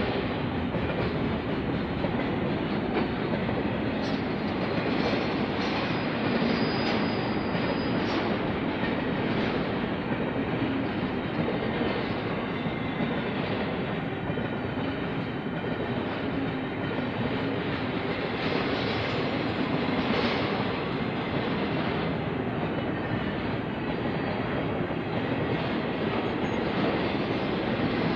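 Freight train of empty intermodal flatcars rolling steadily past, a continuous rumble with wheels clattering over rail joints. A faint high wheel squeal comes in for a few seconds early on.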